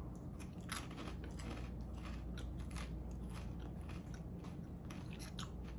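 Faint crunching as a person bites and chews a thick, firm puffed brown rice cake, a string of small irregular crunches.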